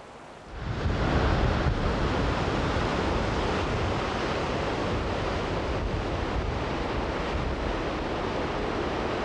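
Rushing water of river rapids and a waterfall, a steady even rush that swells up about half a second in and holds.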